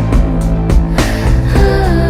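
Background music: a song with a singing voice over a steady beat and bass.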